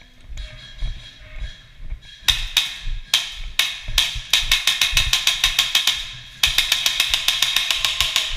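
Airsoft electric gun firing: a few single shots, then two long full-auto bursts of about ten shots a second with a steady whine under them.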